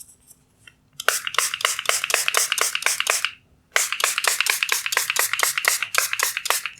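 Rapid, rhythmic scrubbing strokes, about six or seven a second: a towel rubbed back and forth over a plastic headlight lens. The strokes come in two runs of a couple of seconds each, with a short break between them.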